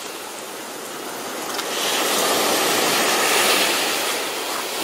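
Ocean surf breaking and washing up a sandy beach, the rush swelling about a second and a half in and easing off near the end.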